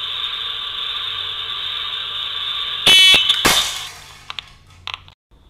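Air pistol fast-draw shooting: two sharp cracks about half a second apart, about three seconds in, the first with a brief metallic ring. A steady high-pitched whine runs underneath until the shots and dies away after them.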